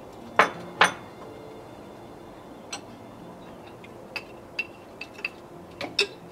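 Tableware clinking during a meal: spoons, bowls and plates knocking together. Two loud knocks come about half a second in, followed by a string of lighter clinks.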